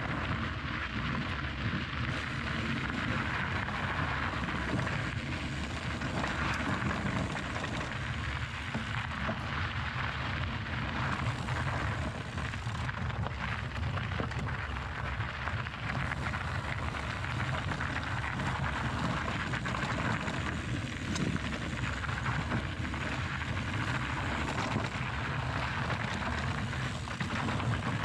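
Mountain bike being ridden over rocky dirt singletrack: a steady rush of wind on the microphone mixed with knobby tyres rolling and crunching over dirt and loose stones.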